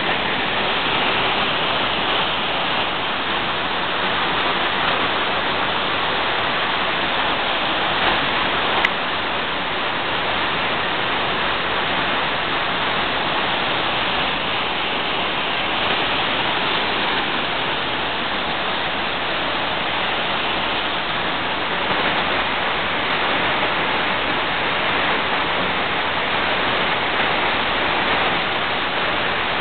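Waterfall plunging into a rocky gorge stream: steady, even rushing of white water. A single brief click about nine seconds in.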